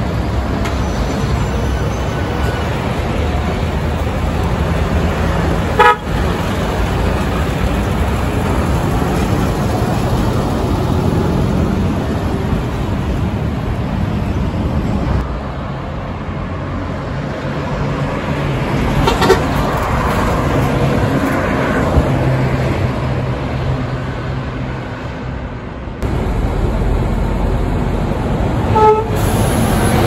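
Heavy semi-trailer trucks' diesel engines running and driving past, with several short horn toots scattered through, about a second or more apart from each other.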